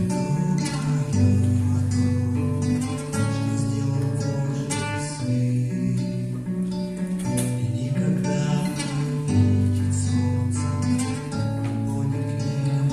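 Acoustic guitar music, chords strummed over held low notes that change every second or two.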